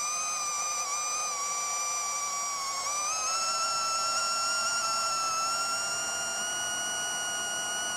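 FPV quadcopter's brushless motors (Racerstar AirB 2514, 1498 KV) spinning HQProp 7040 propellers in flight: a steady high-pitched whine with overtones that steps up in pitch about three seconds in as the motors speed up.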